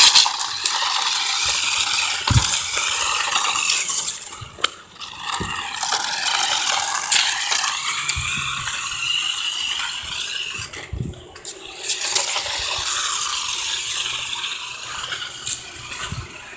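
A New Bright radio-controlled toy race car's small electric motor and gears running as the car is driven, with a few short knocks along the way.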